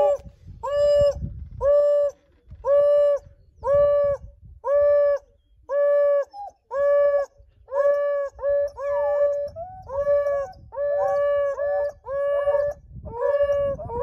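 African wild dogs calling: a steady series of short, clear, level-pitched calls, about one a second, with other dogs' calls overlapping from about halfway through.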